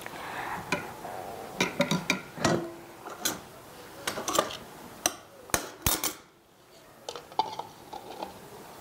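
Kitchen handling sounds: a knife and dishes clinking and knocking against a plate and a metal tray in irregular taps as lemons are cut and handled.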